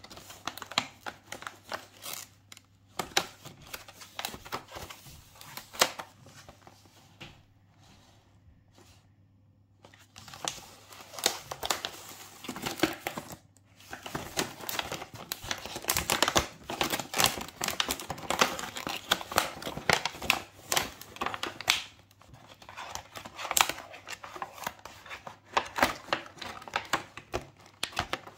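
Clear plastic wrapping on a boxed toy being handled by hand: dense crinkling and crackling with sharp rustles and tearing sounds. There is a short near-quiet pause about a third of the way in.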